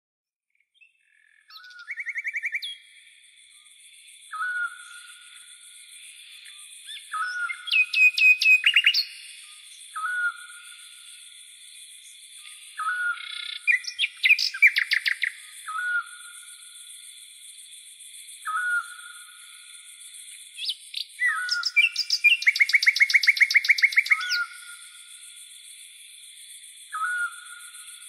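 Birds singing: a short whistled note repeated about every two seconds, broken by loud bursts of rapid trills, over a steady high hiss.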